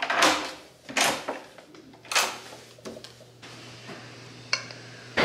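Hotel room door handled and closing, with several loud rushing scuffs in the first couple of seconds. Then a steady low hum, and a single sharp click near the end as the elevator call button is pressed.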